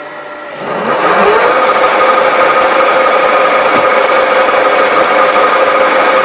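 1V61 screw-cutting lathe running; about half a second in it grows louder with a rising whine as it speeds up, then runs on as a steady, even machine hum.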